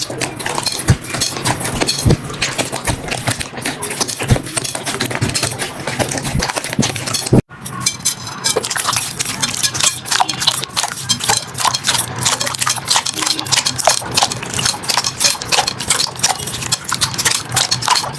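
Slime being squeezed, poked and stretched by hand, making dense, irregular sticky clicks and pops, with a brief break about seven and a half seconds in.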